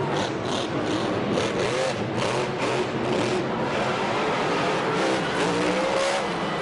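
Monster truck engine running hard at high revs, its pitch rising around five seconds in.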